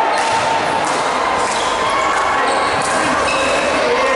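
Reverberant sports-hall din: players' voices and calls with a few thuds of a volleyball bouncing on the court floor.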